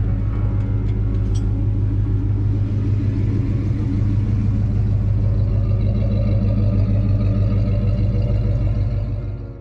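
1965 Dodge Coronet 440's V8 idling steadily through its dual exhaust, fading out near the end.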